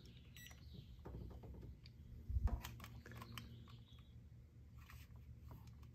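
Light clicks and plastic taps as a hand works the clamp meter's buttons and takes hold of the power-window switch panel, with one louder thump about two and a half seconds in.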